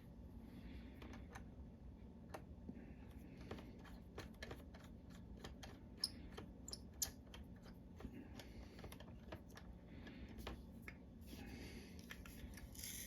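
Faint irregular clicking and light rattling of a manual pepper grinder being handled and twisted, its plastic and metal parts clicking, with soft rustles in between.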